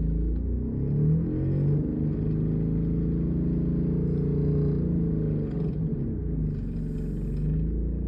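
A 2019 Honda Odyssey's engine running, its speed rising and falling, with a rough noise like an exhaust leak. The cause is a failing high-pressure fuel pump.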